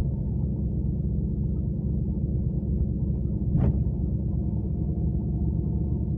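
Steady low rumble of a moving coach bus heard from inside the passenger cabin: engine and road noise. A brief faint tick about three and a half seconds in.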